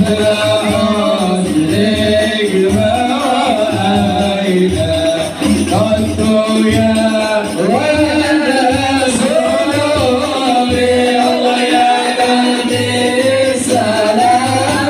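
Men singing devotional sholawat in praise of the Prophet Muhammad, the lead voice amplified through a loudspeaker, with long held and gliding notes over a steady beat of frame drums.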